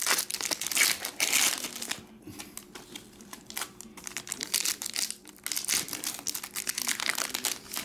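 Foil trading-card pack wrappers crinkling as hands handle them, heaviest in the first two seconds, then in short irregular bursts later on.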